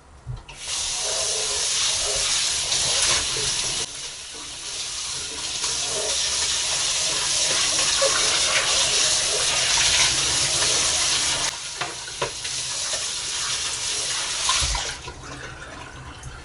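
Kitchen tap running into the sink, a steady rush of water that starts about half a second in, dips briefly about four seconds in, and is turned off shortly before the end.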